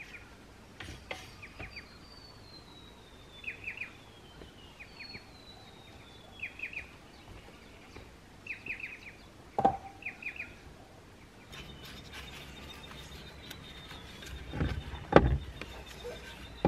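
Wild birds calling: short clusters of three or four quick chirps repeating every second or two, with two long falling whistles. A single knock comes near the middle. About two thirds through, the background changes to a steady high whine with crackling, and a few dull thuds follow near the end.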